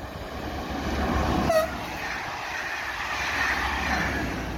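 SNCF Infra BB 22200-class electric locomotive with a short rake of inspection coaches passing close by, the rush and rumble of wheels on rails building up as it goes past. A brief sharp tone sounds about a second and a half in.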